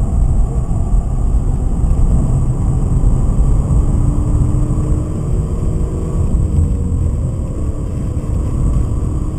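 Inside the cabin of a BMW 528i under way, a steady loud rumble of road and engine noise from its 2.8-litre M52 straight-six, with the engine tone faint beneath the low road and wind noise.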